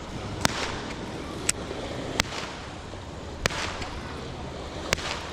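Fireworks going off: five sharp bangs at uneven intervals, some trailing off in a short echo, over a steady background hiss.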